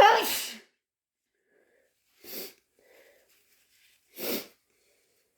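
A person sneezing once, loud and sudden and wet-sounding, followed by two shorter, softer breathy sounds a couple of seconds apart.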